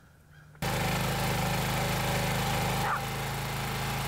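Petrol engine of a walk-behind trencher running steadily while it cuts a trench in sandy ground. The engine sound starts abruptly about half a second in.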